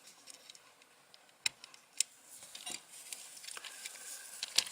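A few scattered light clicks and taps from small electronic parts and wires being handled, with a sharper click near the end.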